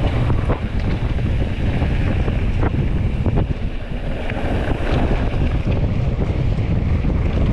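Wind buffeting the microphone over a steady rushing noise, with a few faint clicks.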